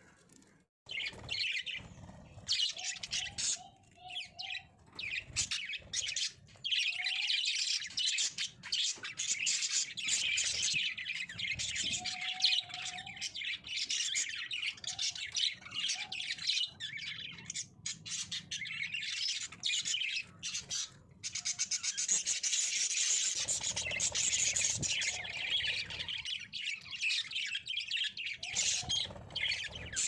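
A flock of budgerigars chattering and chirping continuously, a dense high warble of many overlapping calls that starts about a second in.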